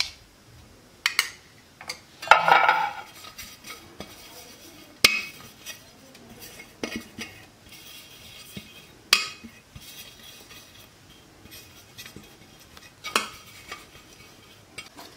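A steel spoon clinking and scraping against a small steel bowl and the aluminium cups of an idli plate as ghee is spooned out and spread, a few sharp clinks spaced several seconds apart with soft handling noise between.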